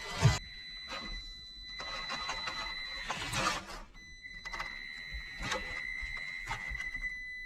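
Small electric motor of a micro-scale RC crawler whining at a steady high pitch as it climbs over a 3D-printed plastic obstacle, stopping briefly about four seconds in, with scattered clicks and knocks of the truck against the plastic.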